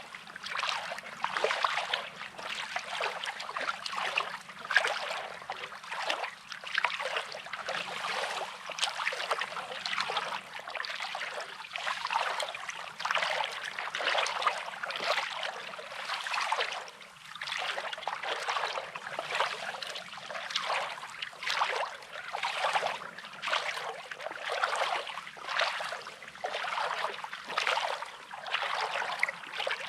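Small sea waves lapping and washing over a pebbly shore: a continuous fizzing wash that swells and ebbs about once a second.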